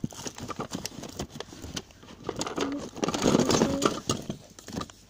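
Handling noise from a phone held close: irregular clicks, taps and rubbing near the microphone, with a louder rustling patch about three seconds in.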